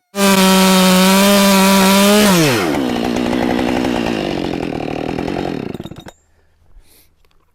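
Husqvarna 572XP two-stroke chainsaw running at full throttle. About two seconds in, the throttle is let off and the pitch drops to a lower, rougher running. The sound cuts off suddenly about six seconds in.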